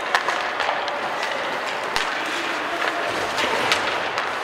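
Ice hockey play on a rink: skates scraping the ice under a steady hiss, with several sharp clacks of sticks and puck, the loudest about two seconds in.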